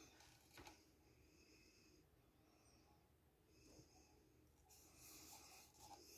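Near silence with faint handling noise from a model aircraft being turned in the hand: a light tap about half a second in and soft rubbing near the end.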